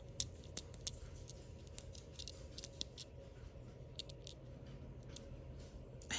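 Faint, irregular small clicks and short scratches of fingers working at the metal centre bearing of a clear-plastic GAO Studio Rice Ball fidget slider, trying to get the bearing out.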